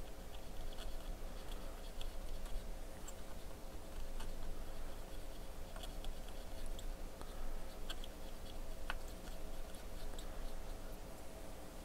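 Cotton swab scrubbing flux residue off a circuit board: light scratchy rubbing with scattered small ticks, over a faint steady hum.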